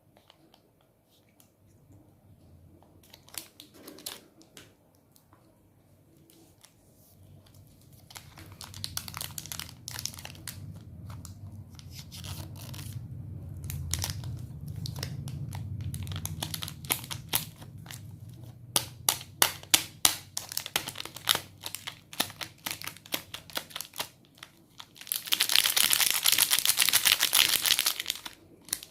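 Chocolate packaging being handled and opened: scattered crinkles at first, then dense crinkling and sharp crackles of the wrapper. It ends in a few seconds of loud, continuous tearing.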